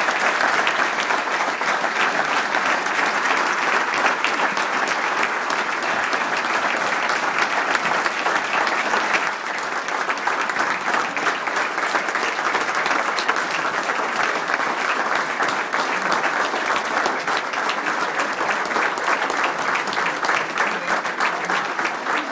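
Banquet audience applauding steadily, many hands clapping at once in a dense, sustained patter.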